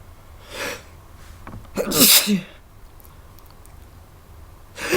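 A person sneezing: one loud sneeze about two seconds in, and the next sneeze starting near the end, with a softer sound just before the first.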